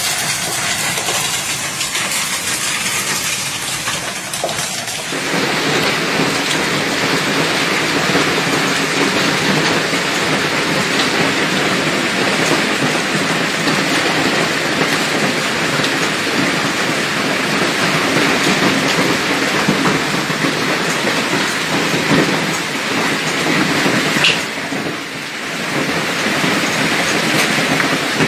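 Hail and heavy rain pelting down in a dense, steady hiss, which grows louder about five seconds in and dips briefly near the end.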